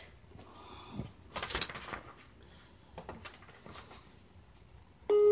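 Faint scattered rustles and a few soft knocks. Right at the end a recorded song starts with several held notes.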